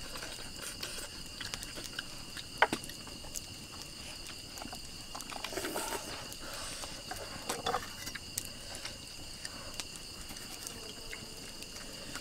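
Steady chorus of night insects, a constant high trilling, with a few soft clicks and rustles of chicken being handled and eaten.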